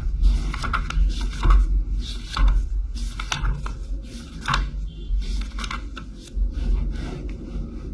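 Paper pages of a printed textbook being flipped, with a string of quick rustles as page after page is turned.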